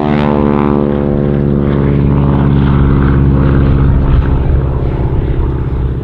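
Stearman biplane's radial engine and propeller droning in flight, the note sliding slightly lower as it grows louder toward a peak about four seconds in, then easing off.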